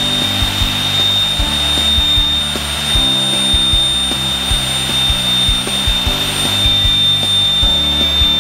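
Pratt & Whitney PT6A-42A turboprop being motored on its starter for a compressor wash, its compressor giving a steady high whine.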